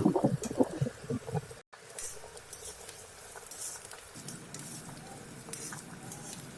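Faint sizzling and crackling of food frying in a little oil in a pan, with occasional light clicks of a spoon stirring.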